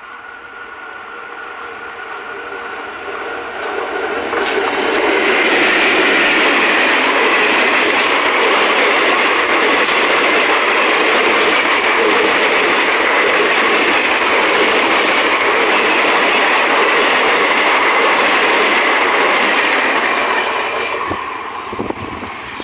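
WAP-4 electric locomotive and its passenger coaches passing at about 120 km/h. The sound builds over the first few seconds as the train nears, with a faint steady tone early on. A loud, steady rush of wheels on rails follows for about fifteen seconds, then fades as the last coach goes by.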